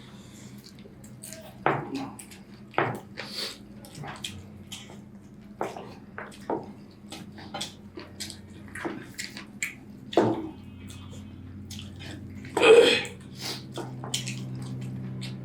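Eating sounds of rice and chicken curry: scattered short wet clicks, smacks and taps of mouths and food on plates, over a steady low hum. One louder burst comes near the end.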